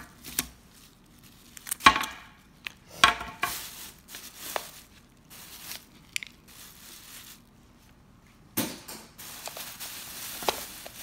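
Thin plastic trash bag crinkling and rustling as a gloved hand rummages through it, with a few sharp knocks of brushes and containers inside, the loudest about two and three seconds in.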